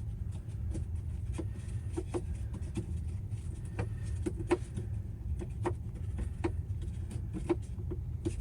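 Light, irregular clicks and taps of hand tools and plumbing fittings being handled, over a steady low rumble.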